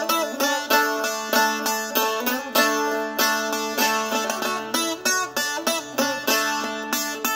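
Solo tzouras, a small Greek long-necked lute, playing a rebetiko melody with quick plucked notes over an open string that keeps ringing underneath.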